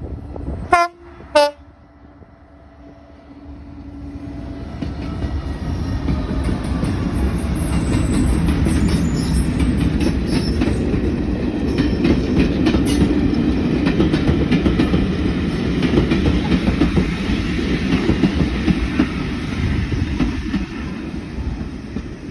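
A train sounds two short toots on its horn or whistle, then approaches and runs past with a rising, steady rumble and the clatter of wheels over rail joints, easing off near the end.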